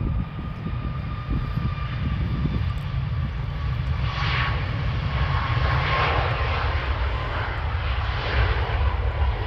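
Ryanair Boeing 737's jet engines at takeoff thrust as the airliner rolls down the runway and lifts off. A steady whine slowly drops in pitch over a low rumble, and a rushing engine noise swells louder from about four seconds in.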